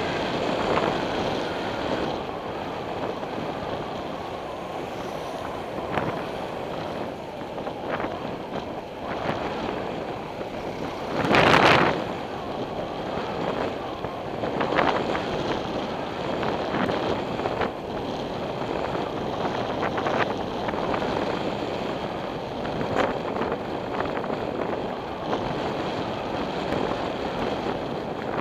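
Wind buffeting a bicycle-mounted camera's microphone while riding, over steady tyre and road noise, with scattered light knocks from bumps in the road. A louder rush lasting about a second comes near the middle.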